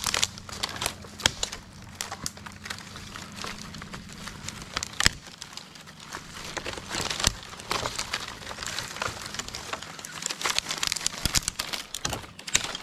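Twigs, branches and brush crackling and snapping in a dense, irregular run of sharp cracks.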